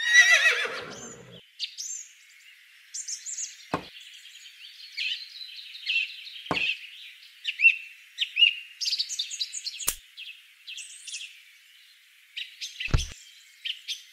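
Birds chirping in a continuous chorus, opening with a short horse whinny that falls in pitch. Four sharp clicks come at intervals.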